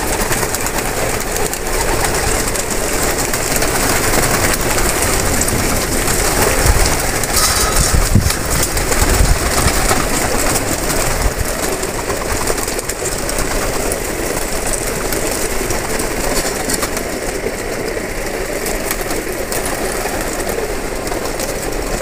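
A large flock of domestic pigeons cooing and flapping their wings, making a dense, continuous din that swells a little about seven to ten seconds in.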